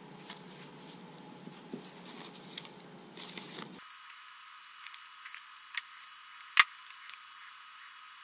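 Small handling noises from a brass ball valve: the rustle of its cardboard packaging being pulled off, then light metal clicks and clinks as the lever handle is fitted onto the valve stem. One sharp click, about six and a half seconds in, is the loudest.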